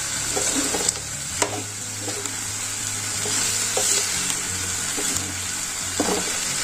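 Meat frying and sizzling in a steel pot while a metal spoon stirs it, with a few clinks of the spoon against the pot.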